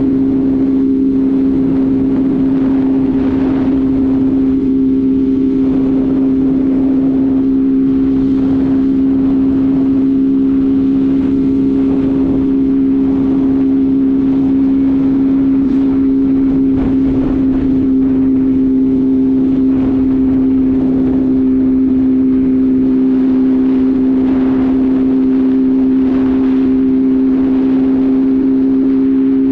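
Motorcycle engine running at a steady cruising speed, its pitch holding level, with wind rushing on the microphone in uneven gusts.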